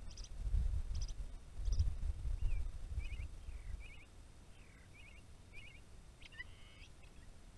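Small wild birds calling with short high chirps: first a few quick doubled notes, then a string of brief rising and falling chirps, some in quick threes. A loud low rumble runs under the first half and stops about halfway through.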